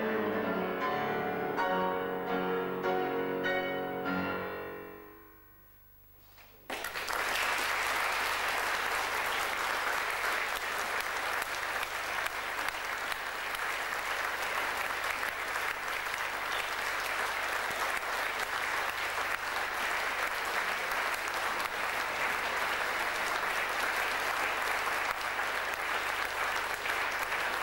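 Piano duet, four hands at one grand piano, playing the closing chords, which die away to near silence. About seven seconds in, audience applause breaks out suddenly and continues steadily.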